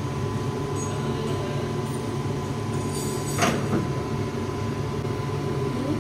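Steady low drone of a commercial kitchen's ventilation and cooking, with one sharp knock about halfway through and a softer one just after.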